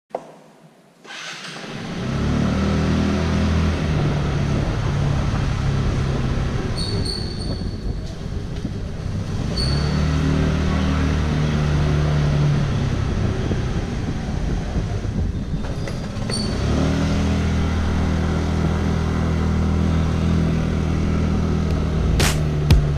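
Motorcycle engine running at a low, steady pitch under way, easing off twice and picking up again, with a few short high squeaks. Rhythmic music strikes start near the end.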